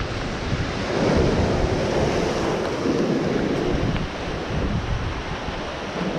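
Ocean surf breaking and washing through gaps between shoreline boulders, swelling about a second in and then easing off, with wind buffeting the microphone.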